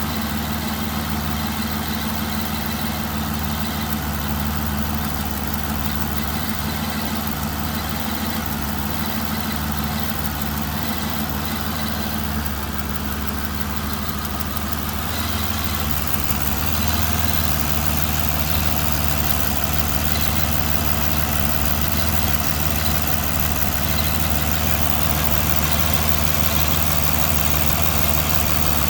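Aston Martin DB9's 5.9-litre V12 idling, with a loud irregular ticking. Each tick is a misfire on cylinder 6: sparks from the failing #6 ignition coil arcing onto the right-hand inlet manifold.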